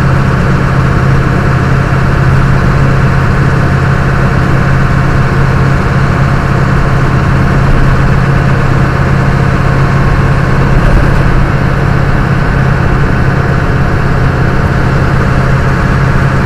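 Old truck's engine and road noise at a steady highway cruise, heard inside the cab: a loud, constant low drone.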